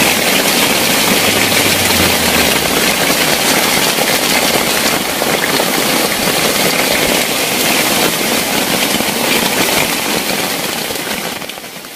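Heavy rain falling on a plastic tarp and the surrounding forest, a steady dense hiss that fades out near the end.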